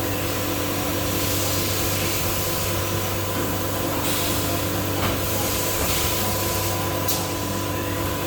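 Machining equipment running steadily: a constant machine hum with several held tones under a hiss.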